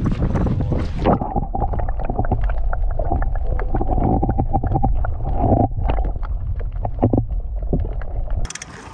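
Wind buffeting a microphone for about a second, then muffled underwater sound: a dull low rumble of moving water with scattered clicks and a faint steady hum, heard through a camera held below the surface.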